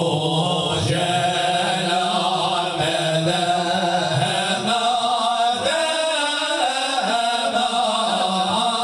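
A group of men chanting Moroccan religious praise (madih) together, unaccompanied, holding long notes with wavering ornaments.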